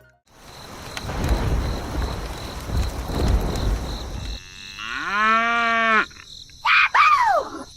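A low rumbling noise for about four seconds, then a cow mooing once in a long rising-then-held call, followed by two short calls that fall in pitch near the end.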